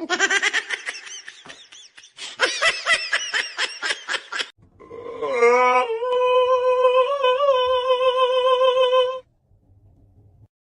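Laughter in quick, repeated bursts over two runs, then one long held vocal note that glides up at its start and holds steady for about four seconds before stopping.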